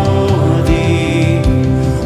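Worship music: a hymn sung over sustained chords, with a held, wavering sung note in the middle and a steady low drum beat about every three-quarters of a second.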